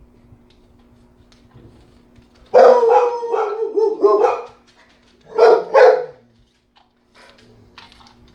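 A dog barking: a drawn-out bark about two and a half seconds in, followed by two short, quick barks around the middle.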